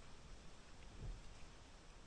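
Near silence: room tone, with a faint low bump about a second in and a few faint ticks.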